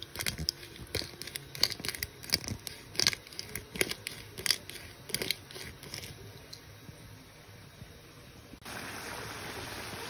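Asparagus spears sizzling in a hot pan, with irregular sharp pops and crackles of spitting moisture for the first several seconds. About three-quarters of the way in, it changes to the steady bubbling hiss of hand-cut potato chips deep-frying in oil.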